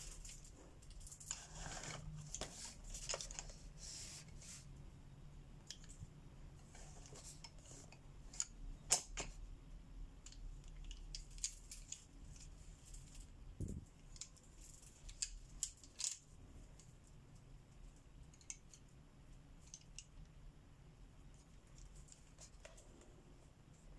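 Colored pencil scratching on paper in short, quiet strokes, with scattered light clicks and one low knock about two-thirds of the way through.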